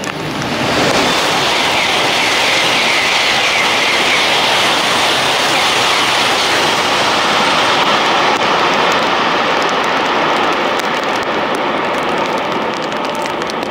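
A Tohoku Shinkansen train passing close by at high speed just after leaving a tunnel. The loud rush of wheels on rail and air builds within the first second, holds steady, and eases off slightly near the end.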